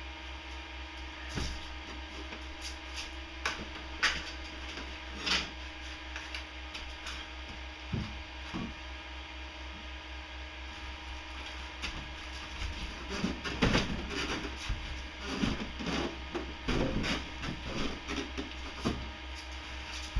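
Handling and unwrapping a plastic-wrapped wooden shipping crate: scattered knocks, taps and crinkling, sparse at first and busier in the second half, over a steady low hum.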